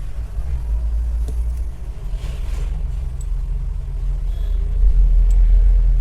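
A steady low rumble, a little louder near the end, with a few faint clicks over it.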